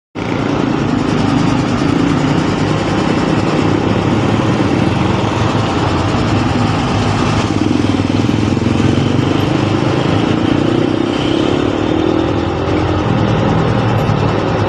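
Steady engine noise of traffic stuck in a jam, with motorcycles among the vehicles, running continuously with a slowly wavering hum.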